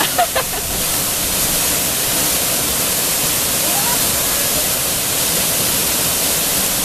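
Steady, loud rush of falling water, an even hiss and roar without a break.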